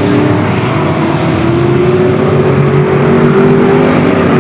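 Street stock race cars running on the track, several engines heard at once, with one engine note slowly rising in pitch.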